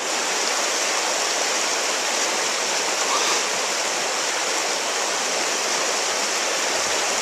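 River rapids rushing steadily as fast water breaks white over rocks and boulders.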